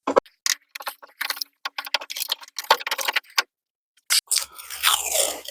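Small metal screws and parts clinking and clicking as they are handled, a rapid irregular run of clicks, followed about four seconds in by a longer rough scraping rustle.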